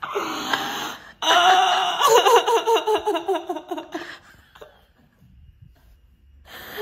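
A woman crying hard: a sharp breath, then a long wailing sob whose pitch shakes in quick pulses, fading into quieter sobbing breaths after about four seconds.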